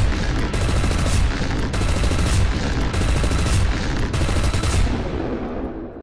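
Cinematic intro sound effects: a continuous crackling, rumbling barrage with a sharp hit about every half second, like rapid gunfire. It fades a little near the end.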